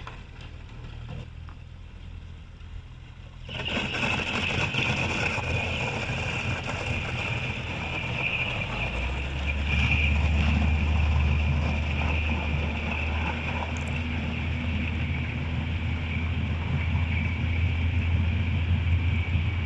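Thin lake ice grinding and ringing as it shifts and rubs after a speedboat has broken a channel through it, a high-pitched jangling din. It starts suddenly a few seconds in, and a low rumble joins it about halfway through.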